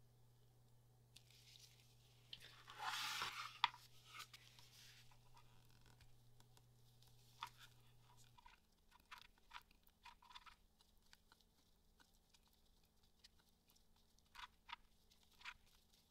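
Faint plastic handling sounds from two-part epoxy resin being measured and mixed. About three seconds in, a short crackling, sputtering burst ends in a sharp click as hardener is squeezed from a plastic nozzle bottle into a plastic measuring cup. After that, a plastic stir stick scrapes and ticks against the sides of the cup in scattered light clicks.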